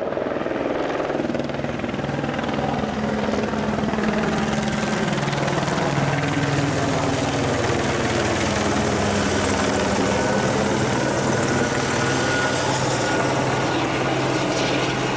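Helicopter flying nearby: a steady engine drone with rapid rotor chop that grows a little louder in the first few seconds, then holds.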